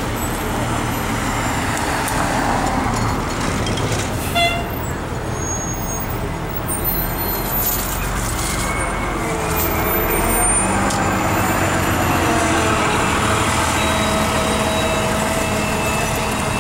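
New York City transit buses, an Orion V diesel and an Orion VII Gen-I diesel-electric hybrid, running and pulling away from the curb over street traffic. A short horn toot comes about four seconds in. In the second half a whine rises and then holds steady, from the hybrid bus's electric drive as it accelerates away.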